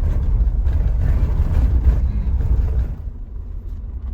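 Car driving on a dirt road, heard from inside the cabin: a low rumble with tyre and road noise, easing off about three seconds in.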